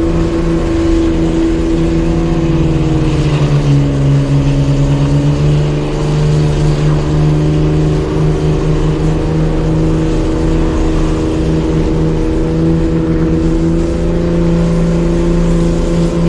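Jeep engine running hard under load while towing a stuck delivery van up a muddy hill on a kinetic rope. The revs sag about three seconds in and pick back up a couple of seconds later.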